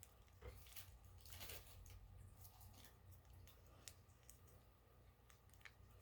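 Near silence with a low room hum, broken by a few faint clicks and soft rustles of handling, most of them in the first two seconds and then a couple of isolated ticks.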